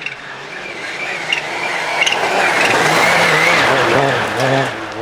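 Rally car at speed passing close by: the engine note and a high whine build to their loudest about three seconds in, then fade as it goes away.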